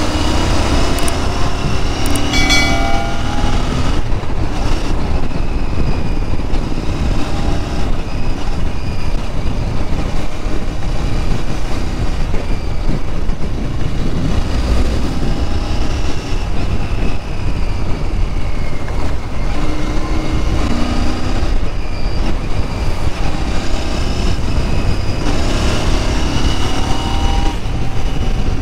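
Royal Enfield Interceptor 650's 648 cc parallel-twin engine through its stock exhaust, running under way and pulling hard, its pitch rising and falling several times as the rider accelerates and eases off.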